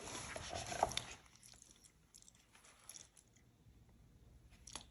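Paper rustling briefly as printed sheets are handled, then a few faint taps and near silence.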